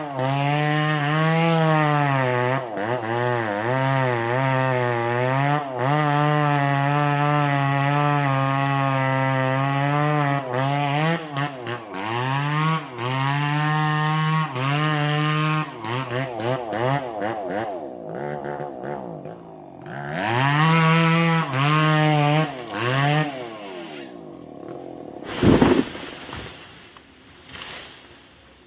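Two-stroke chainsaw cutting through a durian tree trunk, its engine pitch sagging and picking up again over and over as the chain bites. Near the end it is revved in short bursts, then drops away. About two seconds later comes a heavy thump, the cut-off top of the trunk landing.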